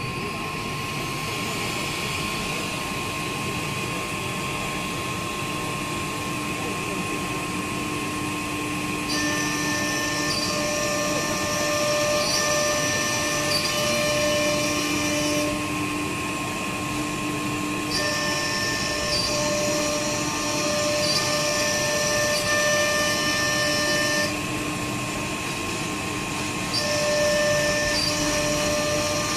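YN1325 pneumatic three-head CNC router running a job on a wooden board, a steady mechanical hum and hiss with a constant tone. High whining tones come and go in stretches of several seconds as the heads and gantry move.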